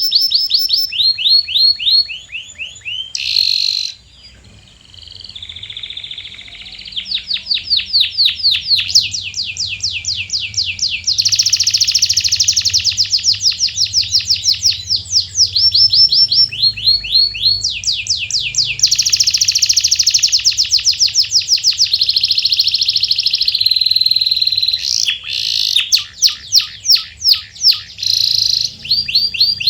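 Domestic canary singing a long song of rapid rolls and trills, each phrase a run of fast repeated chirps, some runs dense and buzzing, with a short pause about four seconds in.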